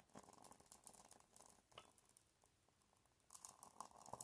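Faint, scattered crackling of a dried bay leaf burning in a lighter flame.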